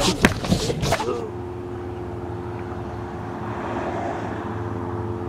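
Knocks and jolts from inside the Land Rover LR4's cabin as it bounces across rough, muddy ground for about a second. Then it cuts abruptly to a steady hum of the parked LR4's engine idling.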